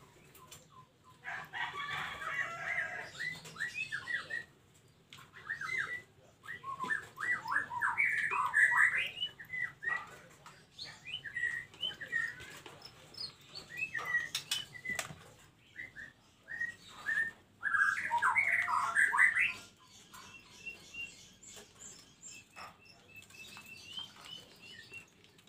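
Caged white-rumped shama and oriental magpie-robin calling in about four bursts of rapid chattering notes, with sharp flutters and taps of wings and feet in the cage. Near the end comes a thin, repeated high note.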